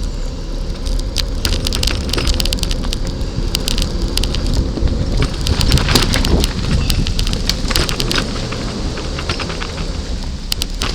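Wind rushing over the microphone and road rumble from a bicycle being ridden, with frequent sharp crackles.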